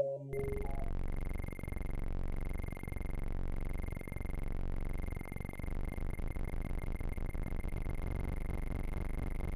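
Kinetik Laboratories GORT the Robot drone synthesizer switched on just after the start, giving a dense buzzing drone of several oscillators beating against each other, with a thin steady high tone on top. The drone swells and dips about once a second, and from about six seconds in it turns into a faster, choppier flutter as the oscillator settings change.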